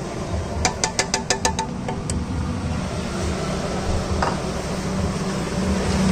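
A plastic spice jar tapped about seven times in quick succession against a large aluminium cooking pot to knock out chilli powder, then a metal ladle knocking once against the pot, over a steady low hum.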